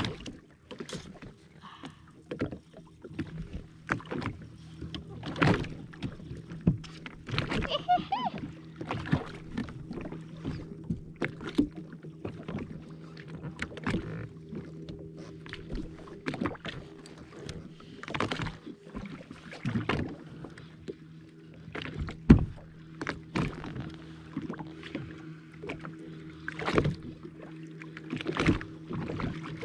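Jet ski engine idling with a steady low hum, under irregular knocks and clatters.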